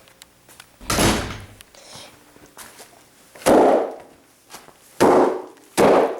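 Blown-up bags popped one after another: a duller bang about a second in, then three loud sharp bangs, the last two under a second apart.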